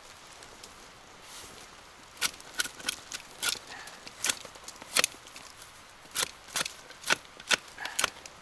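Irregular sharp snaps and knocks of damp firewood, about fifteen in all, some close together and others a second or more apart.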